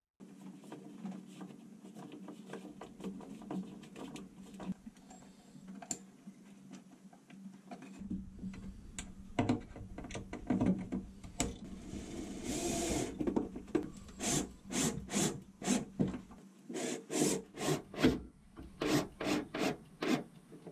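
Hands and tools working on a metal switch bracket: rubbing, scraping and small knocks, getting louder about eight seconds in. In the last several seconds it turns into a run of rhythmic scraping strokes, two to three a second.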